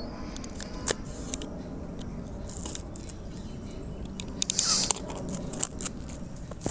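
Cardboard and plastic packaging of a smartphone retail box being opened by hand: scattered clicks and scrapes, with a louder rustling scrape about four and a half seconds in.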